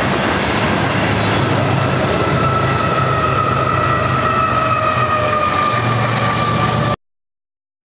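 Rear distributed-power diesel locomotives of a BNSF freight train passing and moving away, a steady engine drone and whine that falls slightly in pitch as they recede, over the rumble of wheels on rail. The sound cuts off abruptly about seven seconds in.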